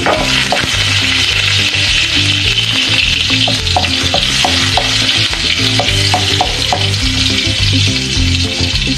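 Chopped garlic sizzling steadily in hot cooking oil in a steel wok, stirred with a wooden spatula.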